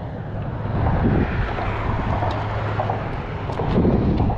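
A steady low motor hum under wind noise on the microphone, with louder gusts of rumble about a second in and near the end.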